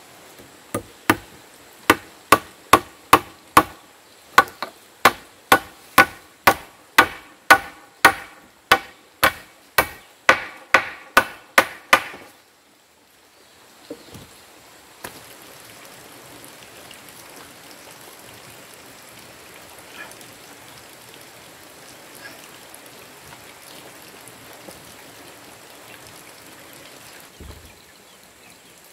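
Steady hammering on timber, about two hard knocks a second for roughly eleven seconds, each blow ringing briefly and growing sharper toward the end. It stops abruptly, leaving a faint steady outdoor background with a few light wooden taps.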